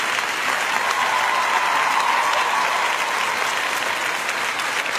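Crowd applauding steadily, a continuous wash of clapping from a large audience.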